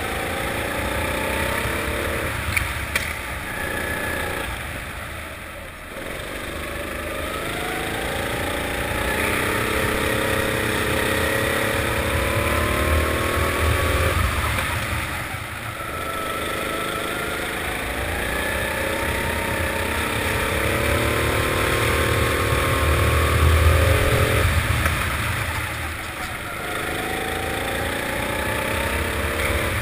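Four-stroke rental kart engine heard from the driver's seat, its pitch rising as it accelerates along each straight and dropping away as the driver lifts off for the corners, three times over. Two sharp clicks about two and a half seconds in.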